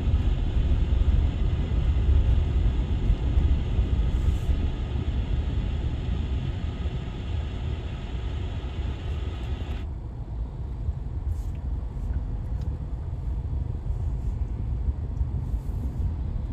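Road and engine noise inside a moving car's cabin: a steady low rumble. The higher hiss drops away abruptly about ten seconds in, leaving a quieter rumble.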